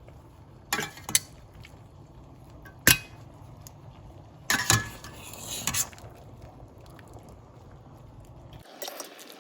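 Metal kitchen utensils clinking and knocking against a pot and pan several times as fettuccine is lifted from the pasta water into the sauce, over a low steady hum that cuts off near the end.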